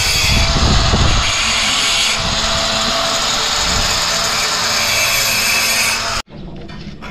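Masonry power saw cutting a stone cladding tile, a loud steady grinding that cuts off suddenly about six seconds in.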